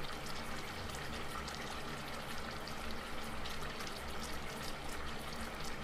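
Coconut milk and muscovado sugar mixture bubbling at a simmer in a pan: steady bubbling with many small pops.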